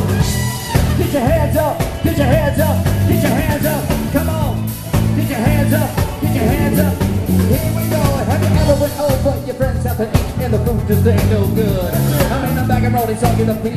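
Live funk band playing a steady groove with drums, bass and electric guitar, a wavering, bending melodic line riding over it.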